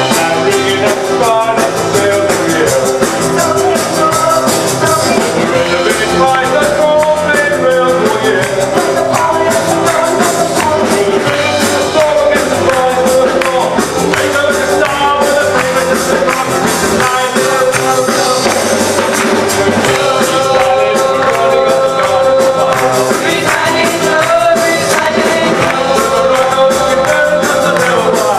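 Rock and roll song with a steady beat and group singing.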